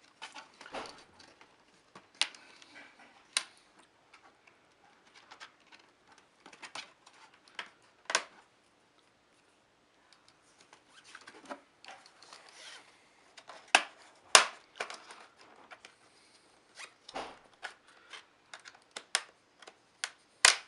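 Plastic laptop casing being worked apart by hand: irregular scraping with sharp clicks, the loudest two close together about fourteen seconds in.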